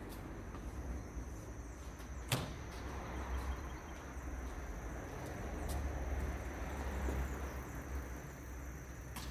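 Street ambience: a low, steady rumble of distant traffic, with a faint high-pitched whine throughout and a sharp click a little over two seconds in.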